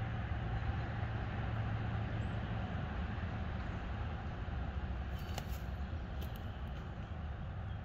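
Steady rushing noise with a strong low rumble, and a few faint clicks in the second half.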